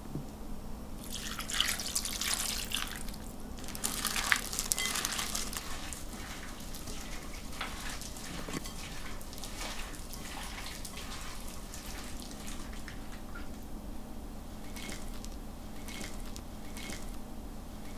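Salad tossed by gloved hand in a glass bowl: wet squelching and rustling of shrimp, cucumber, onion and herbs in dressing. It is densest and loudest in the first five seconds, then thins to scattered small clicks and rustles as portions are lifted onto a plate.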